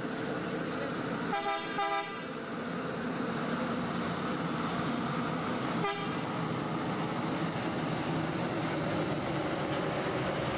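Yellow school bus engine running slowly, with two short horn toots about a second and a half in and another brief toot about six seconds in.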